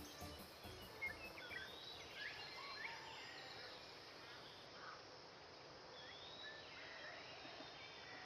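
Faint outdoor ambience: a steady low hiss with scattered short bird chirps and whistles, a few in the first half and a few more near the end.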